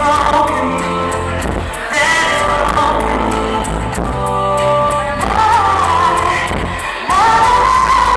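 A band playing a song with a lead vocalist singing over it.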